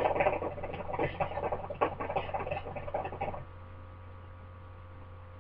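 Water in a hookah base bubbling as a long draw is pulled through the hose. The bubbling stops about three and a half seconds in.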